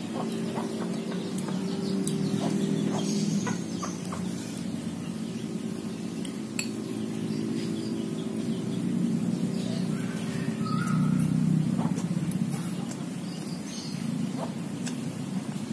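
Scattered light clinks of a spoon against a plate while eating, with chickens clucking in the background.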